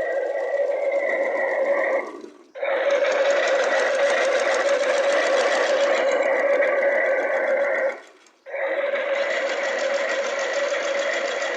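Small electric motor of a battery-powered toy washing machine running steadily with a high whine. It stops for about half a second twice, about two seconds in and again about eight seconds in, then starts up again each time, as in a wash program.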